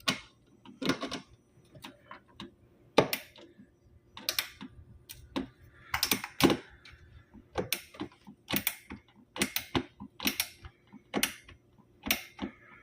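Allen key working a set screw on a refrigerator door handle, turned a little at a time to tighten it: a string of sharp, irregular clicks, roughly one or two a second.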